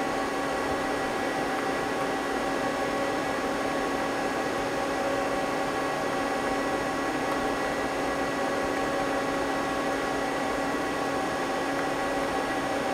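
Steady hum of a powered-up Mazak CNC lathe standing idle: an even fan-like rush with several steady tones in it and no cutting.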